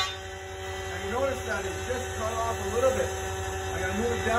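Jointer planer running with no board in the cut yet: a steady motor and cutterhead hum holding several fixed tones.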